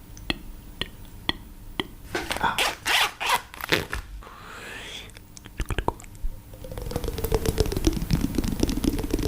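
Close-miked eating-ASMR sounds. Sharp taps come about twice a second, then a burst of loud crunching bites about two seconds in. From about seven seconds there is a dense crackling pour of liquid, its tone dipping and then starting to rise.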